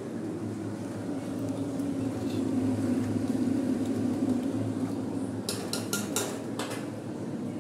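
Steady low kitchen hum, then a quick run of about five clinks and knocks of a metal spoon and lid against steel cookware near the end.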